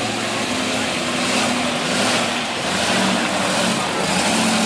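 Holden HQ sedan's engine running steadily as the car rolls slowly past.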